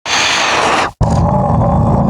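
Demon roar sound effect: a harsh, hissing roar lasting just under a second that cuts off abruptly, followed at once by a deep, rattling low growl.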